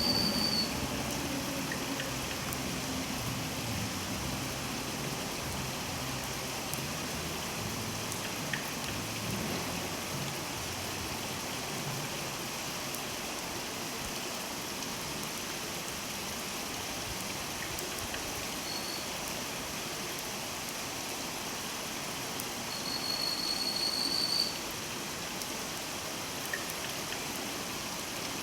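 Steady rush of river water. Near the end a male plumbeous redstart gives a thin, high, even territorial note for about a second and a half, with a brief one a few seconds before it.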